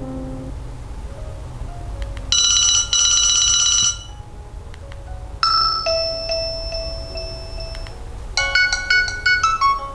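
Nokia 215 4G ringtones playing one after another: a loud trilling burst of high electronic tones lasting under two seconds, then a single chime that rings on for nearly three seconds, then a quick run of bright notes near the end.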